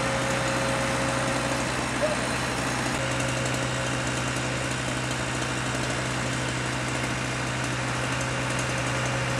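Fire brigade turntable ladder truck's engine running steadily at a constant speed, an even hum with no revving.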